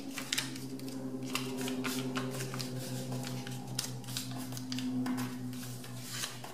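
A sheet of paper being folded and its creases pressed flat by hand: a run of crisp rustles and crinkles. A steady low hum runs underneath.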